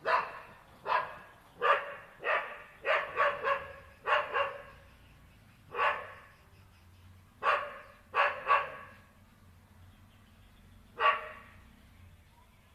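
Dog barking at a cow: about fourteen sharp, loud barks at an uneven pace, several close together at first, then spread out, with a last single bark after a pause of about two and a half seconds.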